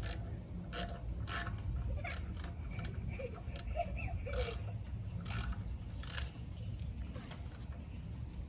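Metal clicks and clinks from hand tools working on a pressure washer pump, about eight sharp, irregularly spaced clicks over the first six seconds.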